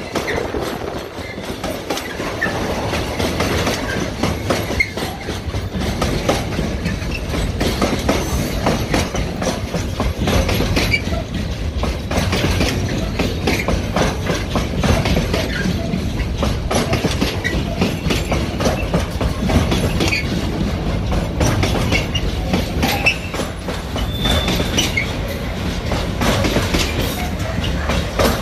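Container freight train's loaded flat wagons rolling past at close range: a steady rumble of wheels on rail with dense clattering and knocking, and a few brief high wheel squeals here and there.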